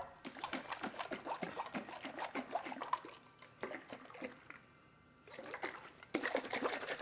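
Broth and flour sloshing inside a closed glass canning jar shaken hard by hand, in quick irregular splashes with a short pause about five seconds in. The sound of a flour slurry being shaken until lump-free to thicken a stew.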